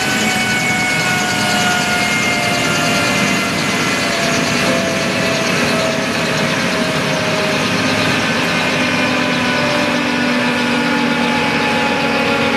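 Eurocopter EC 155 helicopter's twin turboshaft engines and rotor running on the ground after landing: a loud, steady noise with several whining tones that slowly fall in pitch.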